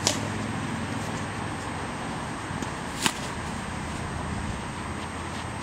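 Tennis ball struck by rackets during a rally: two sharp hits about three seconds apart, over a steady low background hum.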